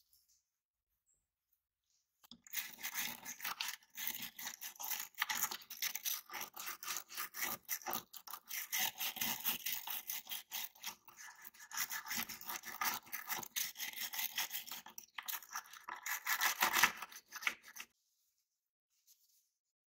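A stiff brush scrubbing rapidly back and forth over a diecast model car body, working the softened paint off the bare metal. It starts about two seconds in and stops shortly before the end.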